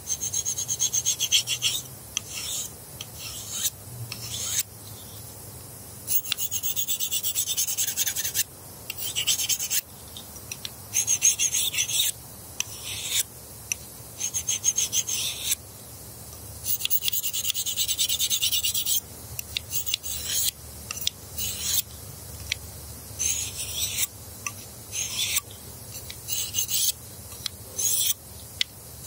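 Steel knife blade scraping along a Lansky ceramic pocket hone in a long series of strokes, some quick and some drawn out over a couple of seconds. A dull Opinel edge is being honed back to sharpness.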